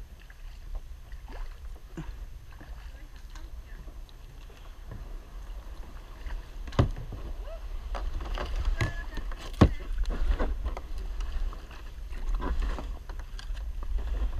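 Plastic kayak being worked with a paddle through a shallow, snag-filled creek: water sloshing and small scrapes and clicks over a low rumble on the bow camera's mic, with two sharp knocks, about seven and nine and a half seconds in.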